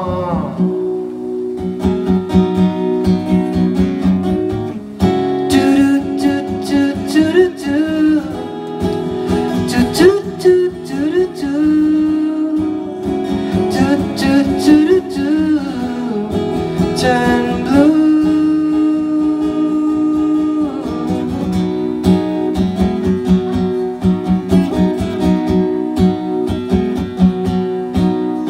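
Acoustic guitar strummed steadily in an instrumental passage of a live solo song.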